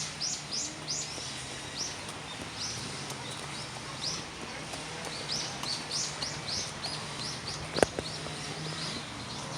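Small birds chirping: short, high calls that fall in pitch, several a second in clusters, over a low steady hum. A single sharp knock about eight seconds in is the loudest sound.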